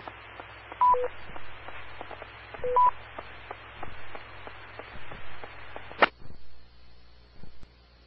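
Amateur radio repeater beeps: a short two-note tone falling from high to low about a second in, then a two-note tone rising from low to high near three seconds, over the open channel's hiss. About six seconds in the transmission drops with a click and the hiss stops, leaving a faint steady high tone.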